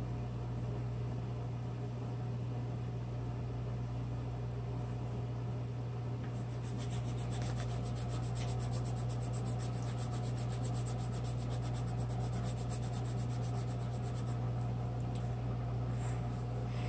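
Colored pencil scratching on paper as green is shaded in with quick back-and-forth strokes, busiest for about eight seconds in the middle, over a steady low hum.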